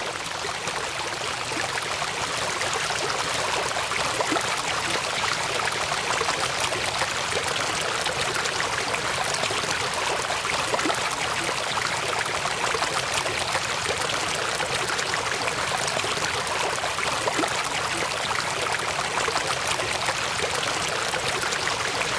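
Rushing floodwater: a steady, even rush of water that keeps up without a break.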